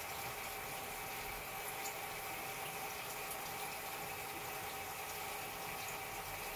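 Aquarium filter running: a steady trickle and bubbling of water with a few faint steady tones from the pump.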